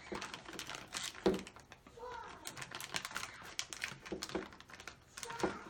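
Plastic Play-Doh toys and packaging being handled on a table: scattered irregular clicks, taps and crinkling. A faint voice murmurs briefly about two seconds in.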